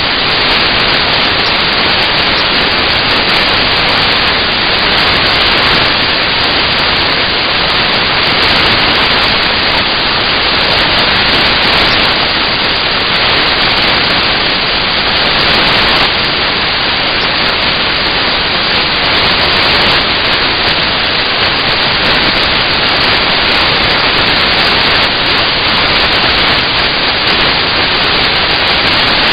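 Loud, steady static hiss that covers everything else, with no change in level.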